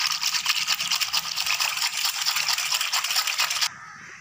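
Fast, vigorous stirring in a steel bowl of sugared syrup and water: a rapid scraping rattle of the utensil and sugar grains against the metal as the sugar is dissolved. It stops abruptly near the end.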